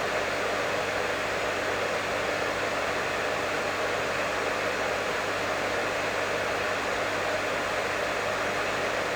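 Professional hair dryer running continuously: a steady, even rush of blown air over a low motor hum, with no change in speed.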